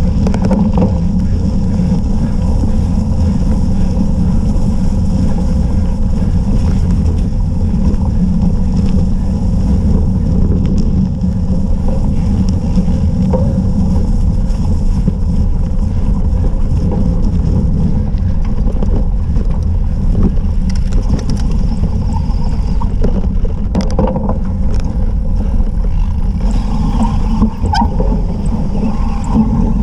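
Steady rumble of wind buffeting the microphone of a camera riding on a cyclocross bike, mixed with the tyres rolling over a bumpy dirt and grass course. Scattered short knocks and rattles from the bike hitting bumps, more frequent in the second half.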